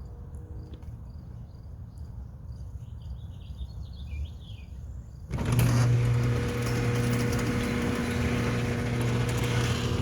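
Birds chirping, then a little past halfway an electric garage door opener starts suddenly and runs with a steady hum and rattle as the door goes up, a few seconds after the code was entered.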